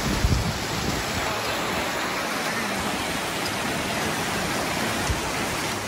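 Steady rushing noise of wind on the microphone, with low buffeting gusts at the start and again about five seconds in.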